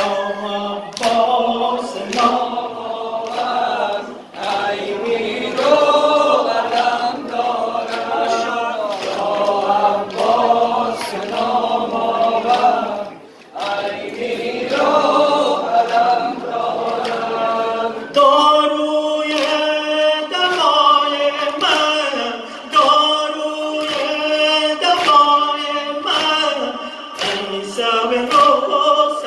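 A man sings a Shia mourning lament (nowheh) into a microphone while a crowd of male mourners sings along unaccompanied. Sharp chest-beating strikes mark a steady beat of about one a second.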